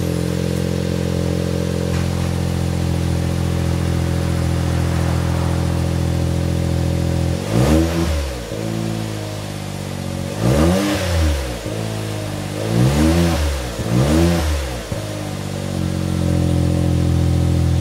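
Suzuki Jimny JB64's 660 cc turbocharged three-cylinder engine idling steadily through a newly fitted ROSSO MODELLO DUSSEL GT-X aftermarket muffler. From about seven seconds in it is blipped four times, each rev rising and falling back to idle.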